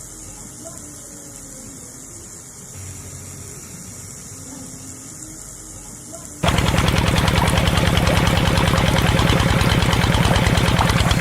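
A homemade mini tractor's small engine starts abruptly about six seconds in and runs loud and steady with a fast, even knocking chatter. Before that there are only faint low sounds.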